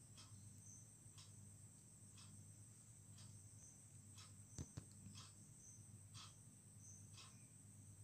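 Near silence: a faint steady high hiss with a soft tick about once a second, and two small knocks a little past the middle.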